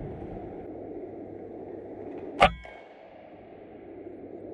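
A single shot from an RTIArms Prophet .22 PCP air rifle: one sharp crack about halfway through, with a brief ring after it.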